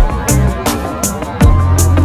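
Background music with a deep, sustained bass line and a kick drum that drops in pitch about every second and a half, with short hissing cymbal hits in between.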